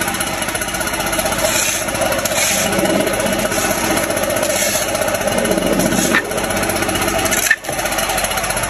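Small gasoline engine of garden power equipment running steadily at an even speed, with a brief drop near the end.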